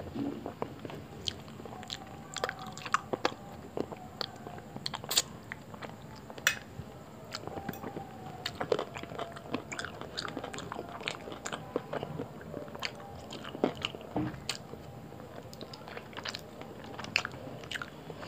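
A person chewing and biting roti with chicken curry, with a steady run of wet mouth sounds and many short, sharp clicks.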